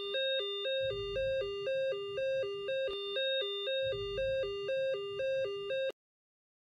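Whistler WS1010 weather alert radio sounding its alert tone: an electronic two-note beep alternating evenly between a lower and a higher pitch, about two cycles a second. It cuts off suddenly near the end.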